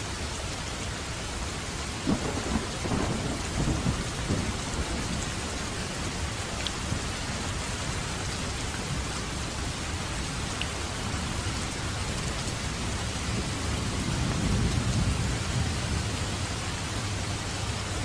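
Steady heavy rain hissing, with thunder: a crackling peal about two seconds in and a low rolling rumble later on.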